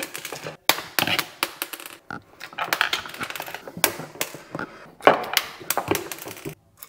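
Irregular clicks, knocks and scraping from a plastic LED driver and a small hand screwdriver being handled against the underside of a wooden kitchen cabinet as the driver is fixed up with small screws; the loudest knock comes about five seconds in.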